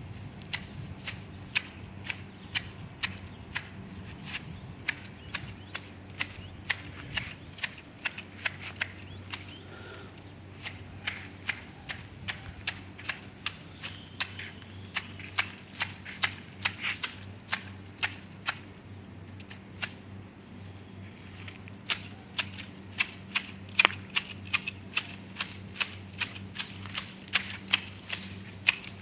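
Hand shears snipping the foliage of a garden tree: sharp clicks at about two to three a second, with a short pause a little past the middle.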